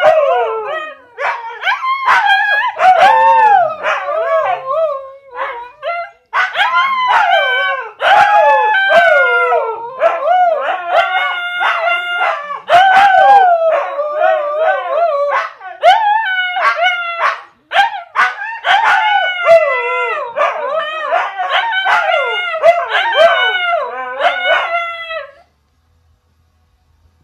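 Two Siberian huskies howling at each other, their overlapping howls wavering up and down in pitch and broken by short pauses. The howling stops near the end.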